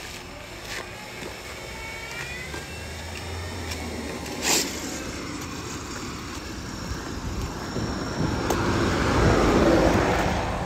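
3D-printed electric RC car driving: a rising motor whine as it accelerates, a sharp knock about four and a half seconds in, and a louder rush of motor and tyre noise near the end.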